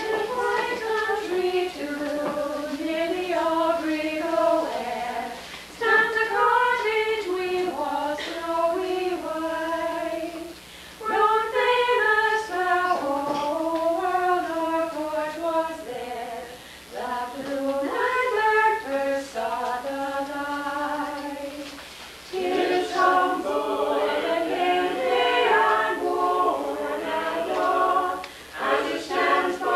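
A small mixed group of men and women singing a song together without accompaniment. The sung phrases last about five seconds each, with short breaths between them.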